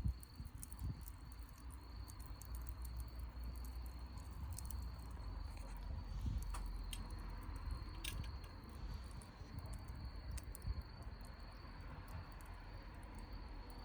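Wood campfire crackling, with scattered sharp pops, over a steady high trill of insects, likely crickets.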